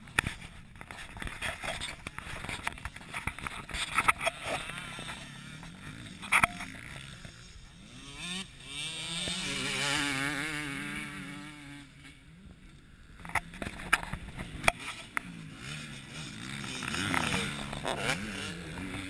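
KTM 250 two-stroke motocross bike passing on the track: the engine swells to a peak about halfway through, its pitch wavering as the throttle is worked, then fades, and swells again near the end as a bike rides off. Scattered sharp knocks throughout.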